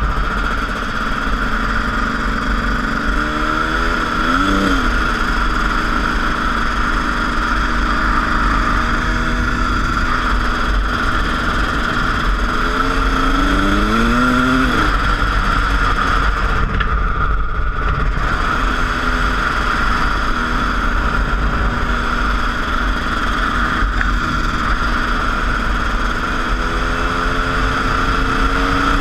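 Freshly rebuilt Yamaha YZ250 two-stroke dirt bike engine under way on the road. Its revs climb steeply three times as the rider accelerates, about three seconds in, around the middle, and again near the end. Steady wind rush runs throughout.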